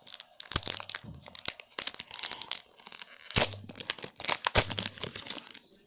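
A pack of Upper Deck Artifacts hockey cards being torn open, its wrapper crackling and crinkling in a run of sharp, irregular crackles, with a few dull knocks as it is handled.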